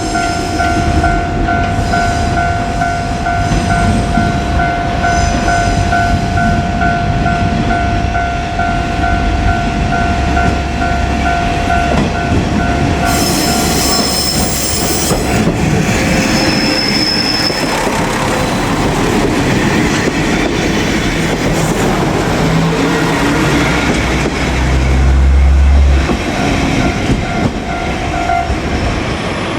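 A KiHa 47 diesel railcar passing a level crossing: the diesel engine rumbling and the wheels clacking over the rails, with a brief high squeal about halfway through and a deep engine rumble swelling near the end. The crossing's warning bell rings steadily through the first twelve seconds or so and starts again briefly near the end.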